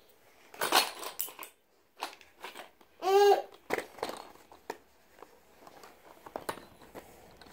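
Light clatter and clicks of wooden colored pencils and their cardboard box being handled on a tile floor, with one short, high vocal sound from a toddler about three seconds in.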